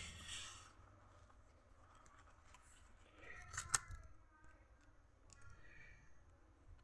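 Faint handling of opened laptop parts: light scraping and a few small clicks, the sharpest a little past the middle.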